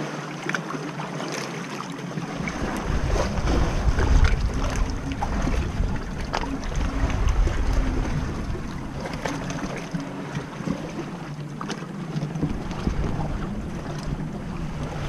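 Sea water lapping and splashing against an inflatable dinghy and the rocks beside it, with small sharp splashes throughout. Wind buffets the microphone in a low rumble from a couple of seconds in until about two-thirds of the way through.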